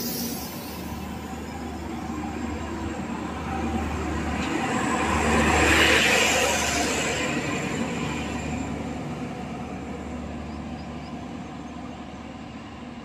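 An Indian Railways passenger train pulling out past the platform with its coaches rolling by. It is loudest about six seconds in, as the grey rear power car with its generator passes close, then the sound fades as the train draws away.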